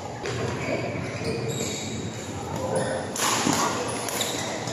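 Badminton rackets striking shuttlecocks: sharp, irregular hits from the rallies, the loudest about three seconds in, echoing in a large hall over a background murmur of voices.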